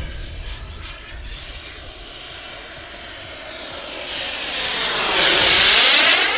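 Kingtech K45 jet turbine of a radio-controlled A-10 Warthog model, a steady rushing jet sound that grows louder as the model makes a low pass, loudest about five to six seconds in.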